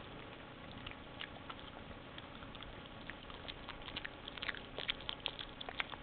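A Brussels griffon chewing banana and smacking and licking her lips, a run of small wet clicks that comes thicker and louder in the last two seconds.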